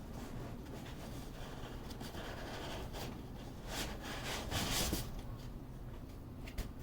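Soft rustling and scraping as unboxed packaging and accessories are handled, with a few light knocks and a louder rustle about four seconds in.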